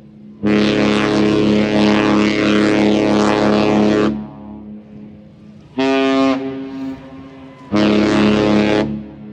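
Cruise ship horn blowing: one long blast of about three and a half seconds, then two short blasts, the first of them higher in pitch.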